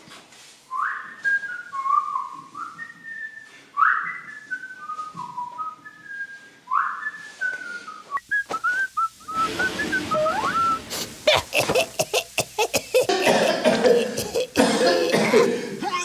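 A short tune whistled in quick high notes, some sliding up into the note, for about eight seconds, then a few chirpy whistled glides. After that it gives way to louder, rough noise broken by many sharp bursts, like laughter.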